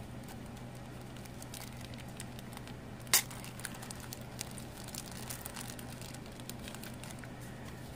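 Clear plastic bag crinkling faintly as it is handled, with one sharp click about three seconds in.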